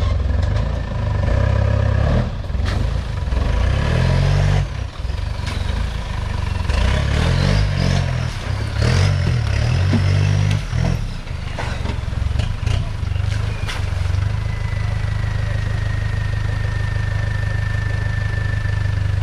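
Off-road 4x4 engine revving up and easing off unevenly, with scattered knocks and clatter. About two-thirds of the way through it settles to a steady run, with a thin high whine.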